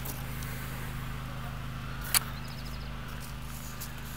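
Steady low background hum, with one sharp click about two seconds in.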